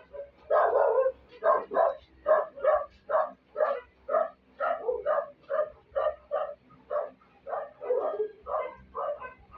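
Dogs barking over and over in a steady rapid run, about two to three barks a second.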